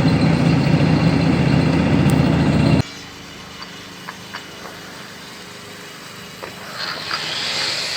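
A machine's engine running steadily and loud, cutting off abruptly about three seconds in. Quieter outdoor background with a few light knocks follows, and a hissing sound comes up near the end.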